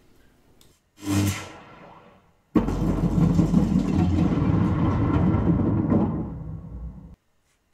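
About a second in, a short swoosh fades away. Then a movie soundtrack excerpt begins suddenly: a loud, dense low rumble with an engine-like quality, played back for an in-ceiling Dolby Atmos speaker comparison. It cuts off abruptly near the end.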